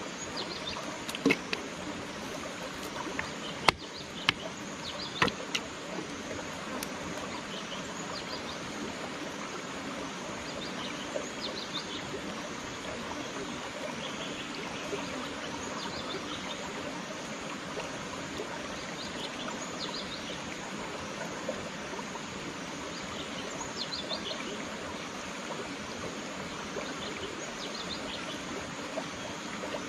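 Shallow rocky stream running steadily, with birds chirping briefly every few seconds. A few sharp taps and clicks come in the first six seconds.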